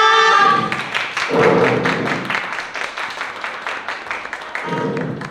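A group of voices calling out together, ending about half a second in, followed by an audience clapping, which slowly fades.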